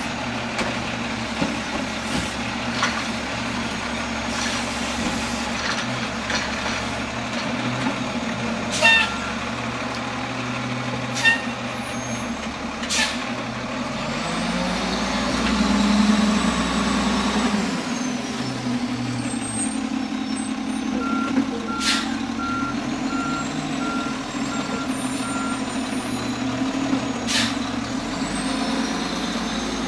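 Automated side-loader garbage truck at work: its diesel engine runs steadily, with several sharp bangs as carts are handled and the engine rising and falling in pitch as it revs and pulls away. A run of short, evenly spaced beeps sounds about two-thirds of the way through.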